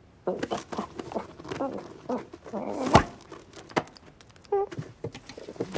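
Cartoon cat sound effects: a cat rummaging in a fabric holdall, with rustling, clicks and thuds mixed with short cat vocal noises. There is a sharp knock about three seconds in and a brief meow-like call a little later.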